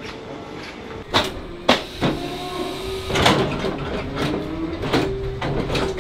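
A powered hoof-trimming crush being worked: a steady motor hum that rises slightly in pitch near the end, with about half a dozen sharp metal clanks from its steel frame and gates.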